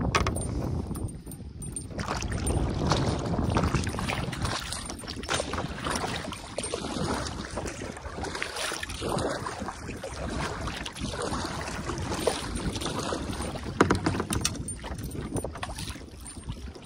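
Small waves lapping and slapping against a plastic kayak's hull, with wind noise on the microphone and one sharp knock near the end.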